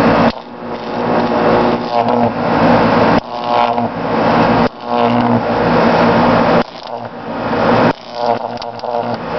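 Buzzing high-voltage electric arc from a pole-mounted distribution transformer ('pole pig') striking a small DC electric motor, loud. It comes in runs of about one and a half seconds that each build up and then cut off suddenly, as the arc is drawn and broken.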